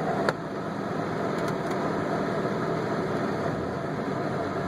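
A 1997 Jeep's engine idling, heard from inside the cabin, with the heater/AC blower fan blowing steadily. A single click near the start.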